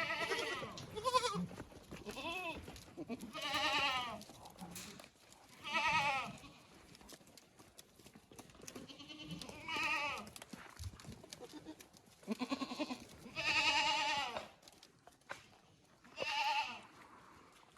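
Osmanabadi goats bleating, about eight or nine wavering, quavering calls at irregular intervals, some overlapping from different animals.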